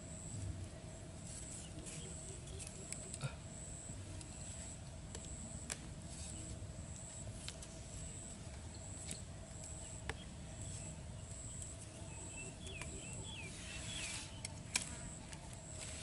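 Scattered light taps and clicks of thin wooden sticks being handled and tied together by hand, over a steady high-pitched pulsing tone and a low hum. A few short chirps come near the end.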